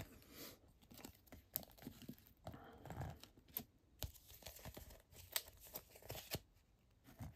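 Faint rustling of plastic card sleeves, with scattered light clicks and taps, as trading cards in sleeves and hard plastic holders are handled and set in place.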